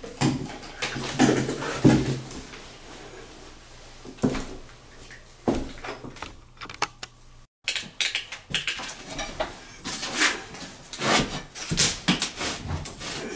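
Irregular knocks, clicks and rustling from handling recessed light fixtures, metal cans and trim rings in and around a cardboard box.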